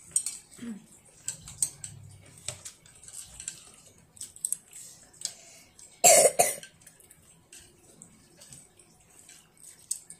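A child eating with wooden chopsticks, with light scattered clicks and mouth sounds, and one short cough about six seconds in.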